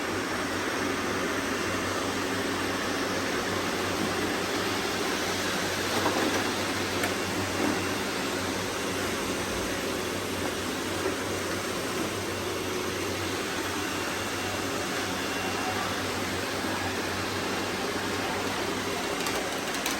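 Robot vacuum cleaners running together: a steady whir of suction fans and brushes, with a few faint knocks now and then.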